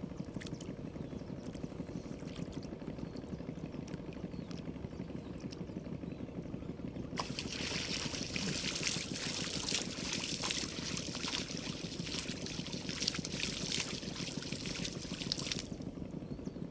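Water splashing and trickling over a steady low rumble. The splashing starts about seven seconds in, grows louder, and stops suddenly near the end.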